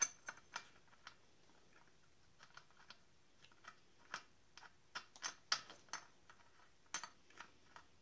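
Scattered, irregular light clicks and taps of hands handling small parts and tools on a chainsaw at a workbench, around its spark plug and leads. The sharpest clicks come right at the start and about five and a half seconds in.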